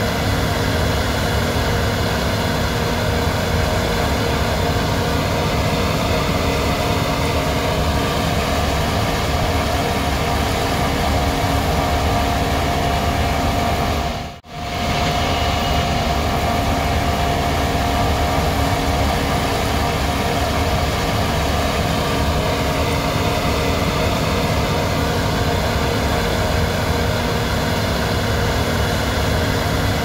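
Steady hum of running machinery with several unchanging tones. It drops out briefly about halfway through and then carries on the same.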